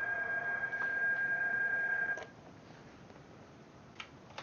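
PSK31 digital signal heard over a shortwave receiver: a steady whining tone over band hiss, which cuts off suddenly about two seconds in. Two faint clicks follow near the end.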